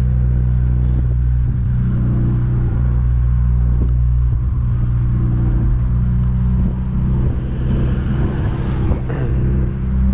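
Honda Civic engine and exhaust, running with no catalytic converter and no rear muffler, only a large intermediate muffler, droning at a steady cruise. It is heard from inside the cabin with the windows open, so road and wind noise mix in. The drone eases a little near the end.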